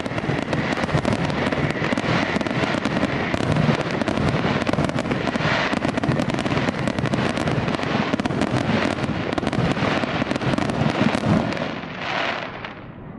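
Fireworks going off in a dense, continuous barrage of rapid cracks and pops that thins out about a second before the end.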